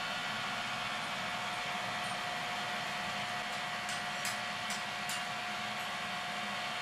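Steady mechanical hum with a constant whine, like a workshop fan or blower running, with a few light clicks about halfway through.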